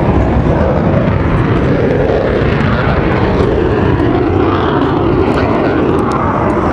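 Jet roar from a USAF Thunderbirds F-16 Fighting Falcon flying overhead: a loud, steady rush with a tone that slowly rises as the jet passes.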